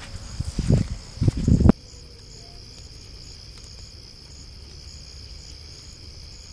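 Crickets chirping steadily in a high, even drone. During the first second and a half, loud low buffeting noise nearly covers them, then cuts off abruptly.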